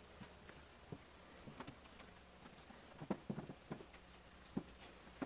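Scattered soft taps and knocks of movement in a quiet room, with a quick run of them about three seconds in, over a low steady hum.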